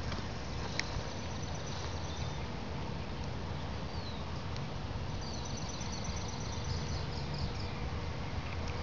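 Outdoor ambience in which a small songbird sings high, rapid trills, twice, over a steady low background rumble.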